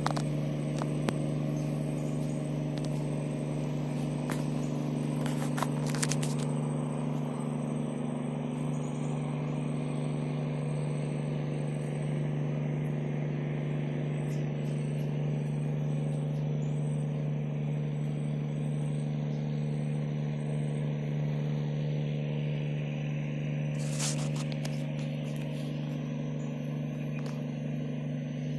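A steady low hum that does not change in pitch, with brief rustling or scraping about five seconds in and again near the end.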